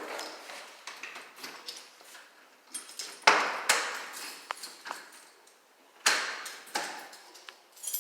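Doors being opened and shut indoors: a few sharp clunks and clicks, loudest in two pairs a few seconds apart, with lighter ticks of handling between them.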